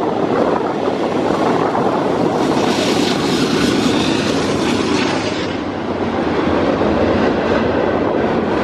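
A train passing, its wheels running steadily over the rails with a loud rushing noise; a brighter, hissing stretch comes between about two and five seconds in.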